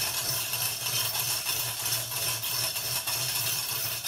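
Manual chain hoist being worked by its hand chain, the chain links rattling steadily through the hoist as it lifts an engine.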